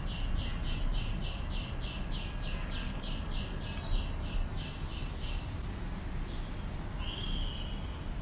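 A bird calling a run of short, high repeated notes, about three or four a second, for some five seconds, then one short call near the end, over a steady low rumble; a high hiss comes in about halfway.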